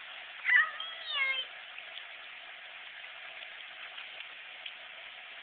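A toddler's high-pitched wordless calls, two short ones with bending pitch in the first second and a half, over a steady faint hiss.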